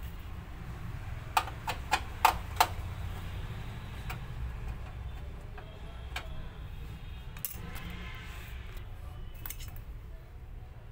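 Screwdriver being worked into and turning a screw in a copier's cover panel: scattered sharp metallic clicks and taps, four close together between about one and a half and two and a half seconds in, with a low steady rumble underneath.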